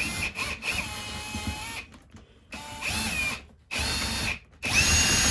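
Power drill run in several short bursts on a screw, its motor whining up and winding down between trigger pulls. The screw is stubborn and the bit is not clearly biting, so it is not backing out.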